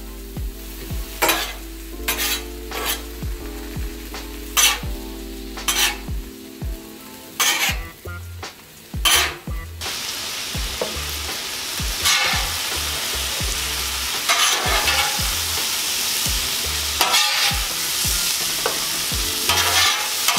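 Chopped marinated beef sizzling in its juices on a steel flat-top griddle, while a metal spatula scrapes and taps across the griddle surface, pushing the meat and scooping it up. The sizzle grows louder and denser about halfway through.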